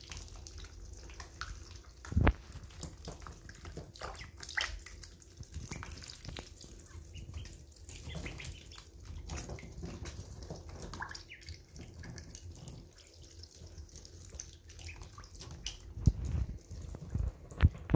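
Week-old ducklings eating and drinking: bills dabbling and clicking in a shallow water dish and feed bowl, with water dripping and splashing in many quick little ticks. A few louder knocks stand out, one about two seconds in and two near the end.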